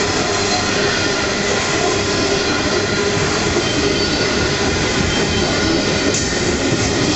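Loaded coal hopper wagons rolling past at close range: a loud, steady roar of steel wheels on rail, with a few faint high tones over it.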